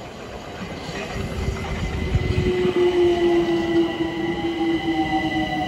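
Southeastern Class 376 Electrostar electric multiple unit running past along the platform: a rumble of wheels on the track and an electric motor whine that slowly falls in pitch. It grows louder to a peak about halfway through.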